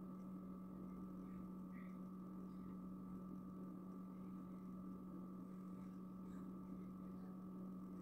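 Quiet, steady hum with a second, higher hum above it, and a few faint small ticks.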